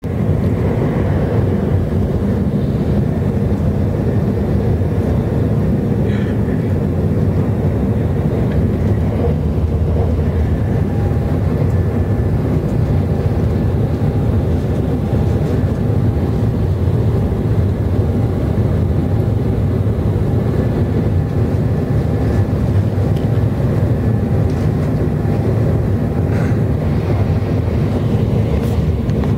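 Shinkansen Nozomi bullet train running at speed, heard from inside the passenger cabin as a steady low rumble. A faint thin whine rises over it through the middle stretch.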